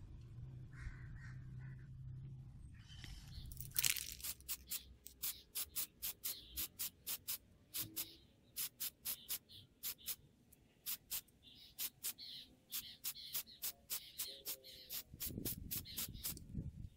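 Aerosol spray paint can hissing out orange paint in rapid short bursts, about four a second, starting about four seconds in.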